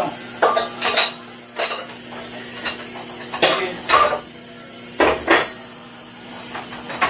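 Kitchenware being handled: dishes and utensils clinking and knocking against each other, about nine separate uneven knocks, over a steady background hum.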